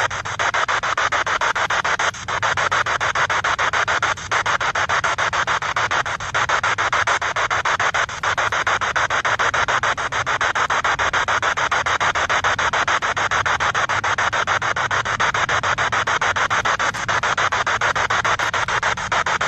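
A spirit box sweeping the radio band: a continuous, loud, rapidly chopping burst of radio static.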